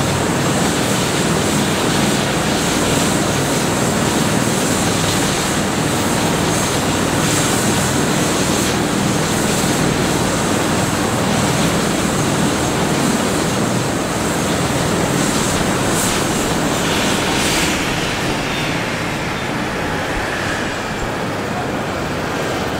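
Airbus H145 rescue helicopter's twin turboshaft engines and rotor running loudly and steadily. About 17 seconds in, a high whine starts to fall in pitch and the noise drops as the engines are brought down after landing.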